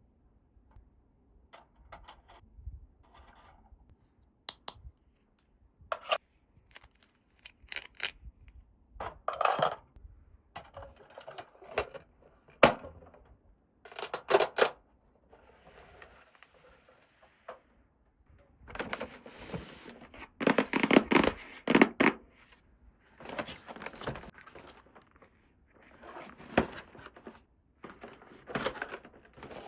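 Small plastic toy play-set pieces being handled and unpacked: a series of sharp clicks and taps, then longer stretches of rustling and scraping in the second half.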